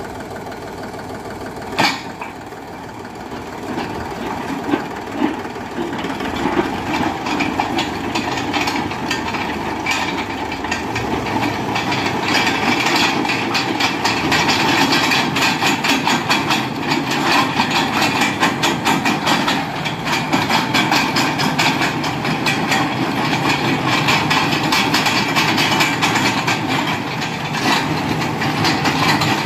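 Tractor's diesel engine running under load, driving a PTO-powered earth auger as it bores into dry soil, with a steady rattle and knocking from the drive. The noise builds over the first ten seconds or so as the auger digs in, then holds steady and loud.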